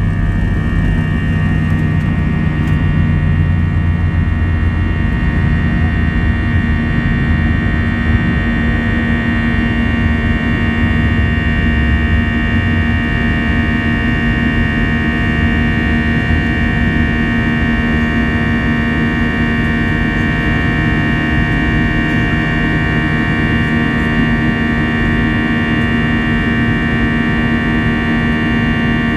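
Airbus A320-200 jet engines running steadily, heard from inside the cabin near the front: a constant roar with a held high whine and a low hum. A deep rumble underneath fades away over the first dozen seconds.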